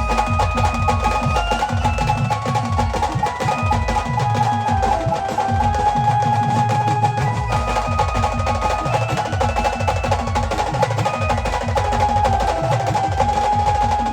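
Instrumental passage of Maharashtrian band music: held melody notes over fast, continuous drumming.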